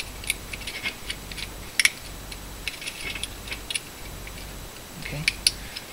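Small, irregular metallic clicks and ticks of thin aluminium sheet and tin-can steel being handled as tabs are pressed down with the fingers, a little louder about two seconds in and near the end.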